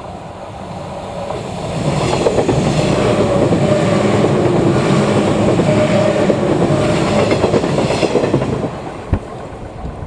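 Electric multiple-unit train, the 485-series 'New Nanohana', passing close by with its wheels clattering rhythmically over the rail joints. It grows loud about two seconds in and stays loud until near the end, with a sharp knock as it clears. A level-crossing bell rings faintly behind it.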